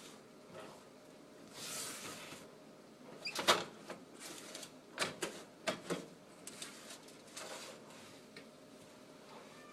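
Scattered light knocks and clicks of household objects being handled, the loudest about three and a half seconds in, with a few more a couple of seconds later and a soft rustle before them.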